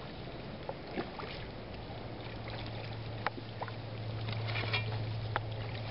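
A steady low motor hum, with a few sharp ticks and light splashing from a hooked steelhead swirling at the surface close to the shore.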